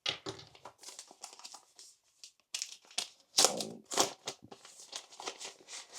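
Packaging crinkling and rustling as items are handled and unpacked, in irregular bursts, loudest about three and a half to four seconds in.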